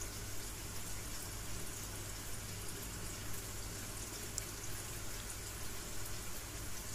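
Steady hiss with a low, steady hum underneath, and no distinct sound standing out.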